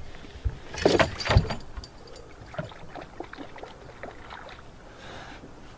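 Water splashing and sloshing beside a boat as a musky is held in the water for release, loudest about a second in, with a couple of dull knocks, then lighter splashes.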